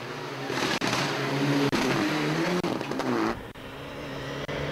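Mitsubishi Lancer Evolution IX rally car's turbocharged four-cylinder engine driven hard at speed, its pitch rising and falling as the driver works the throttle and gears. About three seconds in, the sound cuts to a quieter, steadier engine note.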